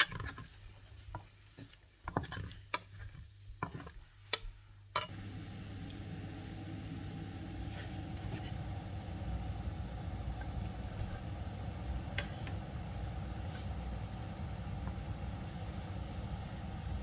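A wooden spatula knocks and scrapes against a nonstick frying pan of mussels, a string of sharp clicks over the first five seconds. About five seconds in, a steady low hum with a hiss starts abruptly and carries on.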